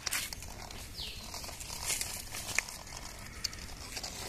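Plastic toy bicycle pushed by hand along a concrete wall: faint light clicks and rolling over an even outdoor hiss, with a short falling chirp about a second in.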